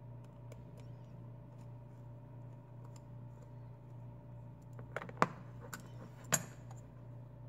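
Small clicks and taps of a folding knife being worked apart by hand, a pointed hobby tool at the handle, with two sharper metallic clicks about five and six seconds in as the aluminium handle scale comes loose. A steady low hum runs underneath.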